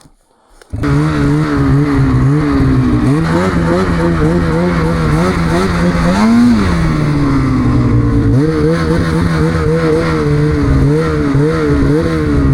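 Snowmobile engine running under way, starting abruptly about a second in after near quiet. Its pitch wavers up and down with the throttle, with one quick rev up and back down about six seconds in.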